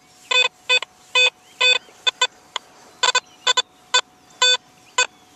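Garrett AT Pro metal detector giving a dozen or so short, broken beeps at uneven spacing, some in quick pairs, as its coil sweeps back and forth over a buried nickel. The signal is scratchy and unstable, the kind of iffy response easily written off as trash.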